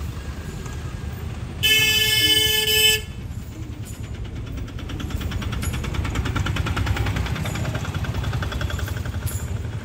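A vehicle horn sounds one steady blast of just over a second. Then a small van's engine runs close by as it passes, a fast even pulsing over a low rumble.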